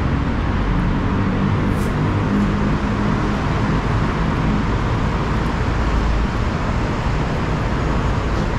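Continuous road traffic noise: a steady low rumble with no distinct single events.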